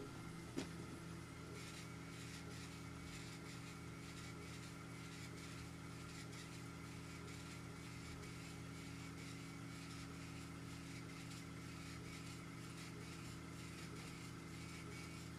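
K40 CO2 laser engraver raster-engraving: a steady low machine hum, with faint regular ticks from about a second and a half in as the head sweeps back and forth across the wood. There is a single sharp click about half a second in.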